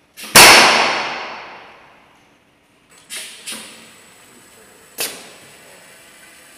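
A high-speed mechanical shock test machine fires: one very loud, sharp metallic impact that rings away over about two seconds. Three lighter knocks follow a few seconds later. The impact delivers a half-sine shock pulse of about 20,000 g.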